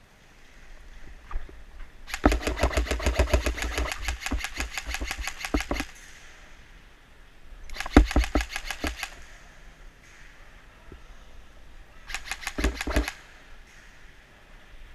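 Airsoft rifle firing on full auto in three bursts of rapid, evenly spaced shots: a long burst of about three and a half seconds, then two short bursts of about a second each.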